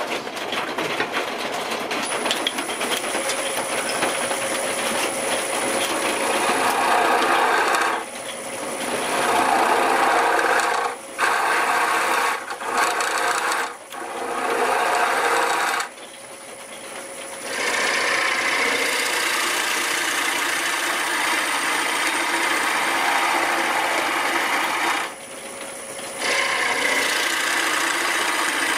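Wood lathe running while a hand-held turning tool cuts into the inside of a spinning square bowl blank: a steady rasping cutting sound that drops away briefly several times, for about two seconds near the middle.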